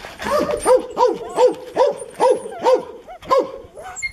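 Seven-week-old puppies yipping: about eight short, high calls in quick succession, roughly two a second.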